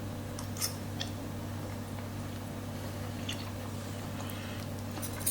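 A person chewing a bite of juicy air-fried chicken breast, with a few soft clicks over a steady low hum.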